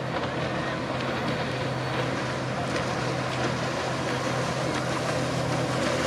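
Steady low drone of a running motor, unchanging throughout, under an even rush of outdoor noise.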